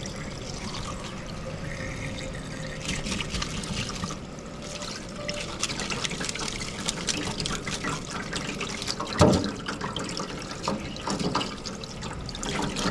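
Tap water running and splashing into a stainless steel sink as a gutted scorpionfish is rinsed clean of blood by hand, with irregular small spatters and one louder knock about nine seconds in.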